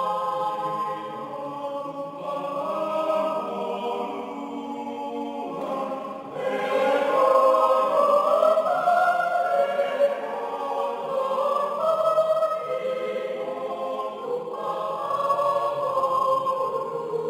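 Mixed choir of men's and women's voices singing in parts, holding chords, growing louder about six seconds in.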